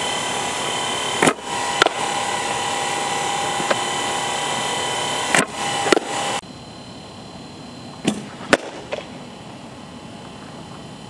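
Softball bat hitting pitched balls: sharp cracks in close pairs about half a second apart, three times, over a steady hiss that drops quieter about halfway through.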